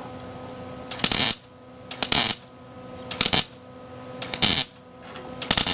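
MIG welder laying tack welds on a thin sheet-steel patch panel: five short crackling bursts about a second apart. A steady hum runs underneath.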